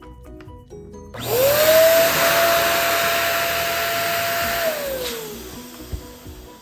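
Electric balloon pump switched on about a second in: its motor whine rises quickly to a steady pitch over a loud rush of air, runs for about four seconds, then winds down as it is switched off. Background music with a steady beat plays throughout.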